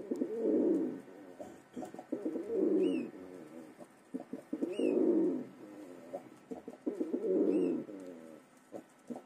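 Pigeon cooing: a low rolling coo repeated four times, about every two and a half seconds. Short high squeaks and a few light taps fall between the coos.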